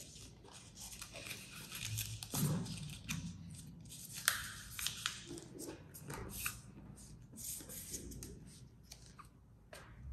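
Paper dollar bill rustling and crinkling as it is folded and creased by hand, with fingers pressing and sliding along the folds; a sharp crackle about four seconds in is the loudest moment.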